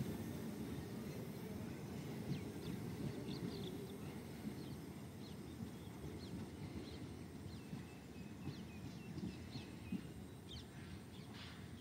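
Hassan–Solapur Express passenger train rumbling away along the track, its low rumble slowly fading as the last coach recedes. Birds chirp from a couple of seconds in.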